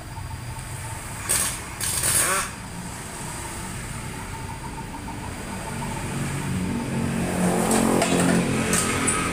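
A motor vehicle's engine running, swelling over the last few seconds as if passing close by. Two short metallic scrapes of engine parts being handled come about one and two seconds in.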